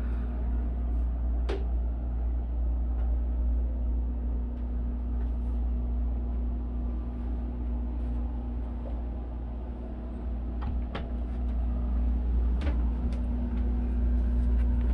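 Steady low hum with a constant mid-pitched drone inside a small cabin, broken by a few light clicks, one about a second and a half in and a few more near the end.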